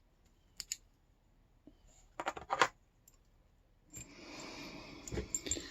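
Metal clicks and clinks from a Yale K300 padlock being taken apart, with its core being pushed out using a follower. There are two sharp clicks early, then a quick cluster of louder clicks just after two seconds. About four seconds in, a scraping, rustling sound begins, with scattered clicks over it.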